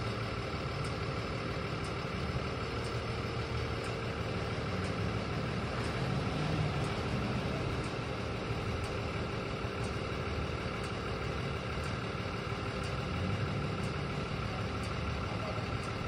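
Engine of a CrushR dumpster-compactor truck running steadily, a low rumble with a steady hum over it and a slight swell partway through.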